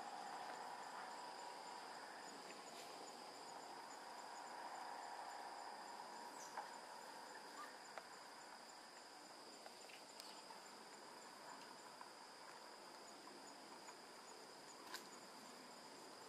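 Faint, steady high-pitched insect song: a continuous whine with a pulsing chirp above it, plus a few soft clicks.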